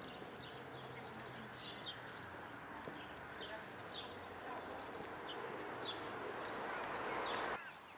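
Small songbirds chirping and trilling over a steady outdoor background rush; the rush swells near the end and then cuts off abruptly.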